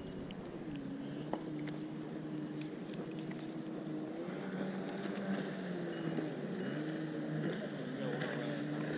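A boat motor running steadily, a hum whose pitch dips and rises slowly, with a few faint ticks from hands handling the bait.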